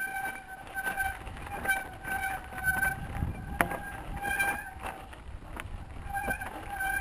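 Mountain bike ridden over a rough, stony track: rattling with sharp clicks and knocks, a low rumble, and a short high squeal that keeps coming and going about once or twice a second.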